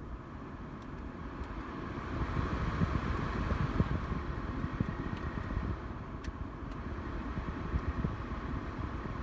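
Air-conditioning blower fan of a Mercedes-Benz E350 running. Its airflow rises about two seconds in and eases off around six seconds, over an uneven low rumble. The blower motor was found to be failing and due for replacement.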